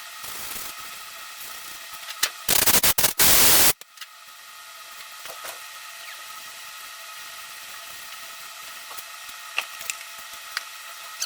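A loud burst of hiss lasting about a second, a couple of seconds in, that cuts off sharply, over a steady background hum; scattered light clicks follow.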